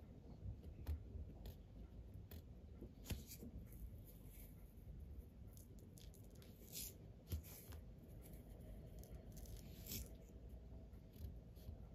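Faint, scattered ticks and scratches of loose model-railway ballast grit, sprinkled from a small plastic cup and worked between the rails with a paintbrush, over quiet room tone.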